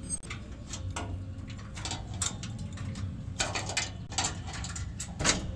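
Scattered light metallic clicks and clinks of an adjustable wrench and bolts on a steel swing frame during assembly, with two short scraping rustles, one about three and a half seconds in and one near the end.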